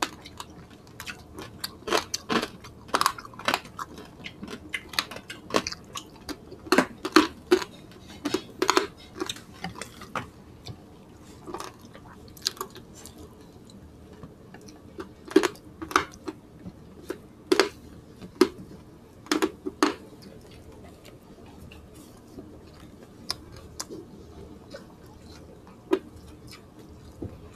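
Close-miked chewing and crunching of crispy lechon (roast pork) skin, with many sharp crackles. The crackles come thick and fast for the first ten seconds, return in a cluster a little past the middle, then thin out to quiet chewing.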